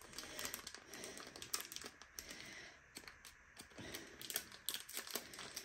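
Faint, irregular crinkling and clicking of a small plastic zip-lock pouch being handled and opened.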